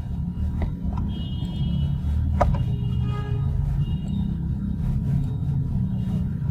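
Steady low background rumble, with a few short clicks about half a second, one second and two and a half seconds in.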